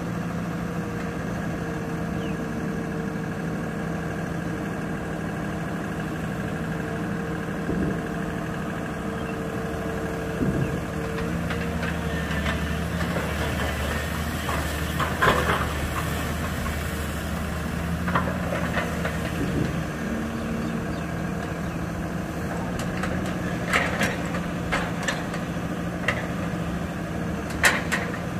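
Excavator's diesel engine running steadily, with a number of sharp clanks and knocks in the second half.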